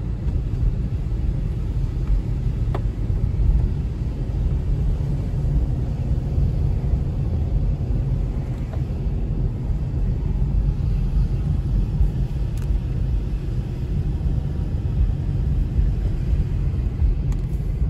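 Steady low rumble of a car driving on a wet road, heard from inside the cabin: the running engine and tyres on wet pavement.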